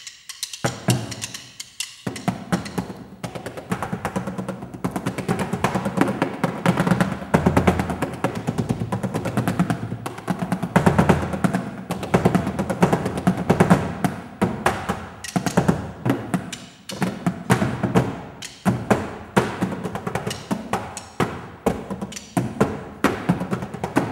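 Percussion music: a fast, dense run of sharp drum strokes and knocks, starting after a brief pause at the outset.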